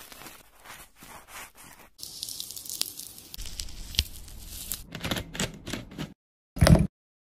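Soft tearing and picking sounds as the white pith is pulled off a peeled orange, with a few sharp little clicks. A short, louder thump comes near the end.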